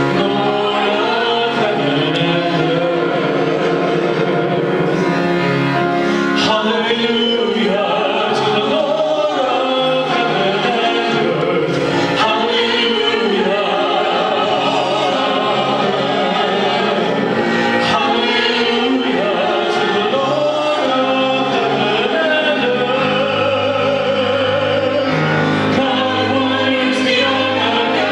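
Choir singing a hymn with instrumental accompaniment, steady and continuous.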